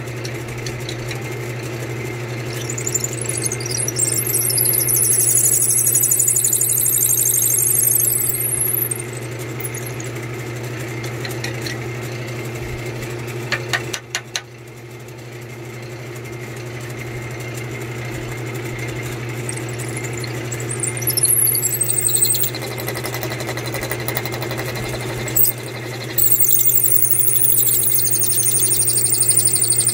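Wood lathe motor running steadily while a long drill bit in the headstock chuck bores lengthwise into a hand-held wooden chair spindle. The bit squeals high-pitched in the wood twice, for several seconds each time, with a few clicks in between as the spindle is pulled back off the bit.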